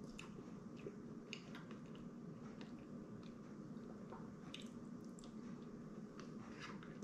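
Quiet eating: a spoon scraping and dipping in a cup of chili, with wet chewing, giving scattered small clicks and smacks over a low steady hum.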